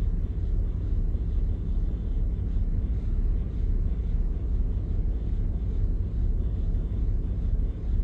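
A boat's port and starboard engines idling steadily, a continuous low rumble, while they warm up after a start.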